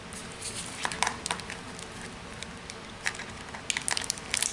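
Plastic crackling and clicking as a clear plastic candy tub is handled and the sealed lid picked at with the fingers. The crackles come in irregular clusters, about a second in and again near the end.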